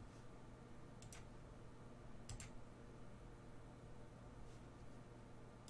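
Near silence with faint room hum, broken by a few faint computer mouse clicks, a pair about a second in and another pair about two and a half seconds in.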